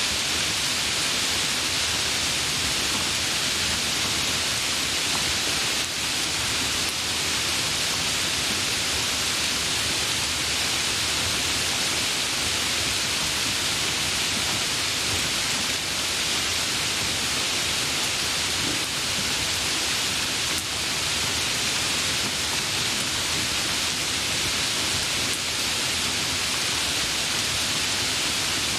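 Steady heavy rain falling, an even hiss with no thunder or distinct drops standing out.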